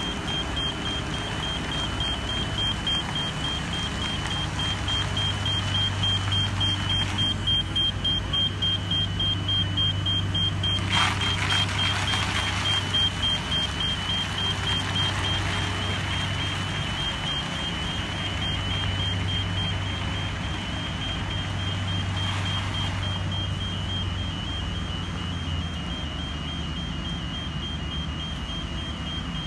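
Low-profile tunnel service train's tractor unit driving slowly while pulling loaded segment wagons, with a steady low drone and a rapid high pulsing warning beep. A short burst of hiss comes about eleven seconds in.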